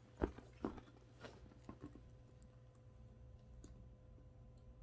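A leather-trimmed canvas handbag handled and set down on a cushion: a few soft knocks and clicks in the first couple of seconds, the sharpest about a quarter second in, then only a faint steady hum.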